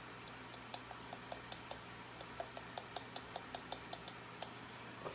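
Light, rapid clicking, about five clicks a second in two runs with a short break between: a cinnamon spice jar being shaken and tapped to sprinkle cinnamon onto a spoon.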